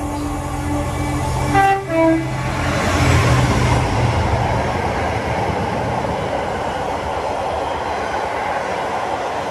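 Diesel freight locomotive sounding two short horn notes, a higher then a lower, about two seconds in. It then passes close with its engine running, followed by the steady noise of a long train of enclosed car-carrier wagons running by at speed.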